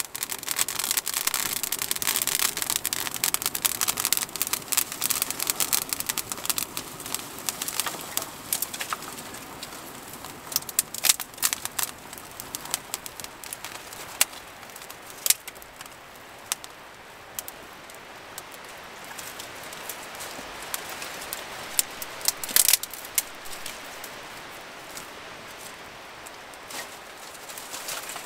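Newly lit campfire of kindling and small sticks crackling as it catches: a dense run of crackles for the first several seconds, then thinning to scattered sharp pops.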